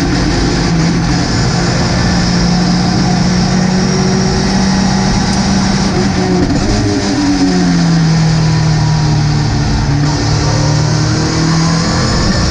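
Ginetta GT5 race car's four-cylinder engine running at steady revs from onboard. The pitch dips about halfway through, holds lower for a few seconds, then starts to climb again near the end.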